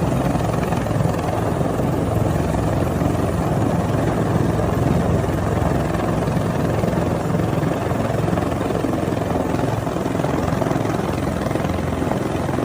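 Helicopter rotor and engine running steadily, a loud continuous drone.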